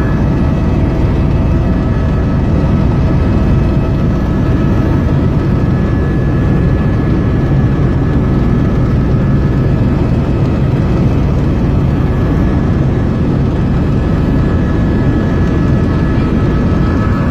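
Helicopter cabin noise during flight: the rotor and turbine engine running steadily, a dense low drone with a faint high whine.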